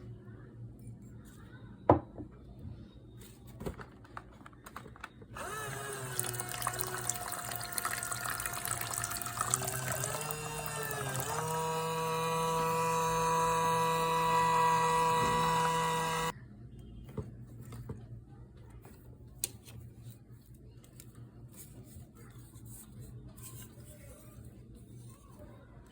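A sharp click about two seconds in, then water running or spraying for about eleven seconds with a whining tone through it. The tone wavers about halfway, holds steady, and cuts off suddenly.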